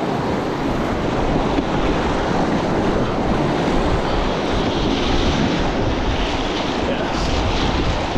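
Loud, steady rush of whitewater from a river rapid as a packraft runs through it, with wind buffeting the microphone.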